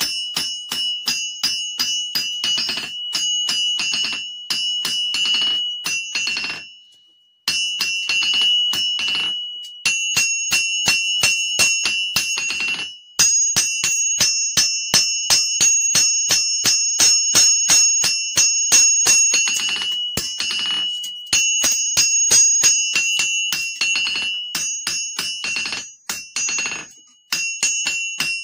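Hand hammer forging a red-hot knife blade on a Kohlswa anvil: rapid blows, several a second, each leaving the anvil with a high, clear ring, broken by a few short pauses.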